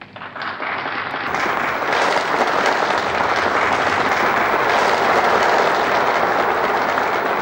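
A large audience applauding, fading in over the first second or so and then holding steady.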